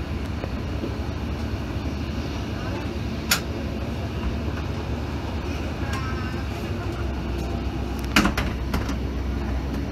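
1980s passenger train running along the line, heard from inside the carriage: a steady low rumble with a sharp clack about three seconds in and a louder cluster of clanks about eight seconds in.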